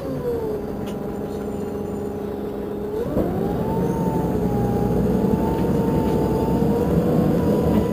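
Irisbus Crossway coach's diesel engine running: its whine falls as the revs drop at the start, holds steady, then rises sharply about three seconds in as the engine picks up again and stays a little louder.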